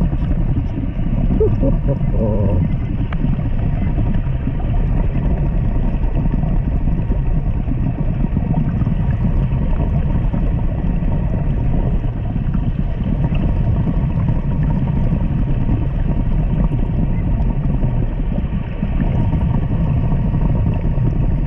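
Steady low rumble of water noise picked up by an underwater camera, with a few faint short warbling sounds about two seconds in.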